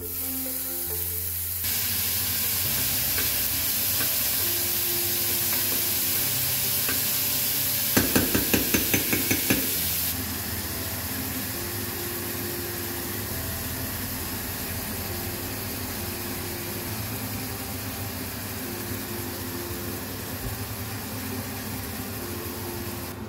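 Minced meat sizzling as it browns in a saucepan. About a third of the way in, a utensil stirs it with about six quick knocks against the pan, and the sizzle eases a little after that.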